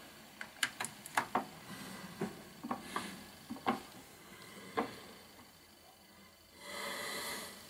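Light clicks and knocks of a USB plug going in and hands working a laptop, with no spin-up, whirr or clicking from the Toshiba laptop hard drive: the drive is dead and shows no reaction to power. A short hiss near the end.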